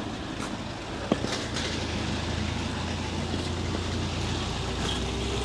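Truck engine running: a low drone that grows stronger about a second and a half in, with one sharp knock about a second in.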